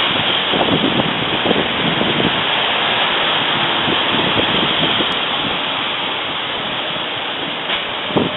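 Steady rushing noise of surrounding road traffic, an even roar with faint swells and no distinct events.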